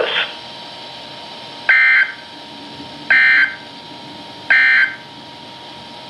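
NOAA Weather Radio receiver sounding three short, buzzy digital data bursts about a second and a half apart: the SAME end-of-message code that closes an Emergency Alert System alert. A faint steady tone and hiss from the radio run underneath.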